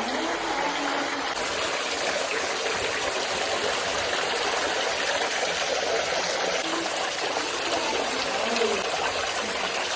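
Running water flowing steadily, an even splashing rush.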